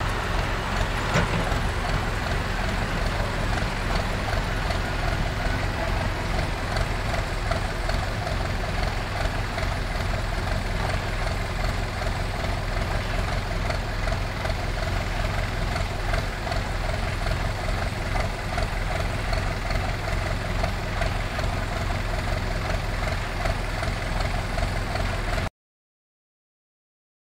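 Heavy diesel machinery running steadily, a low engine rumble without changes in speed. The sound cuts out abruptly near the end.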